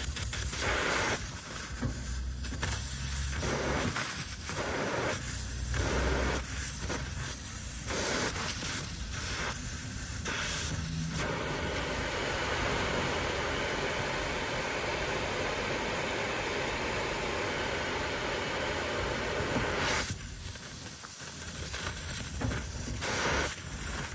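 Refrigerant gas hissing out of a leak in an air conditioner that has lost its charge. The hiss comes uneven and broken, with some low rumble, for the first ten seconds or so. It then holds as a steady hiss for about nine seconds before breaking up again near the end.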